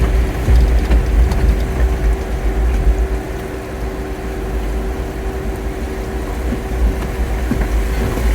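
Jeep Wrangler driving on, a steady low rumble of engine and tyres with a constant hum above it; it eases a little about three seconds in.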